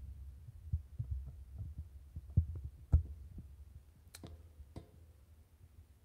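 Handling noise: scattered soft knocks and clicks over a low rumble as the camera is moved and repositioned, dying down near the end.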